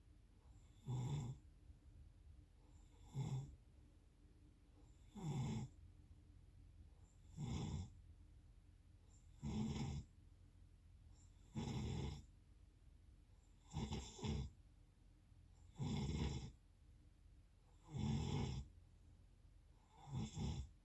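Snoring during sleep: one short, rough snore about every two seconds, ten in a row, a few of them split into two quick pulses.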